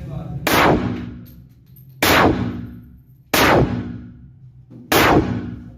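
Pistol test-fired with four single shots about one and a half seconds apart, each shot ringing out and echoing away for about a second.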